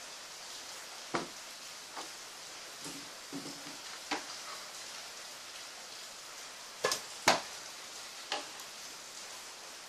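A printed circuit board and a soldering iron being handled on a wooden table: several short knocks and taps, the loudest two close together about seven seconds in, over a steady hiss.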